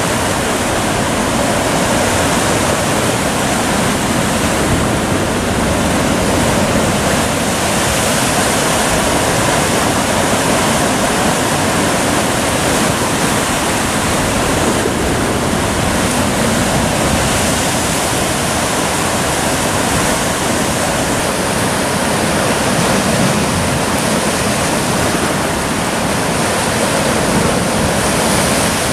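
Surf breaking and churning against rocks, a loud, steady rush of white water with no let-up.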